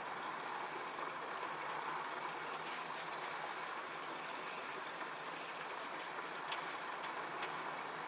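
Steady rushing noise of running water, with a few faint high chirps and a couple of small clicks near the end.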